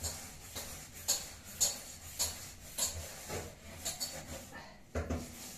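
A Labrador puppy shifting about on a rug over a tiled floor: short soft scuffing noises, roughly two a second.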